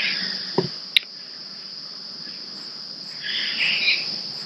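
Steady, unbroken high-pitched chorus of crickets. Short scratchy rustles near the start and again about three seconds in, and a single sharp click about a second in.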